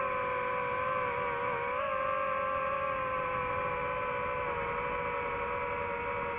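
DJI FPV drone's motors and propellers droning steadily in flight, the pitch dipping and rising slightly with throttle about two seconds in, then drifting slowly lower.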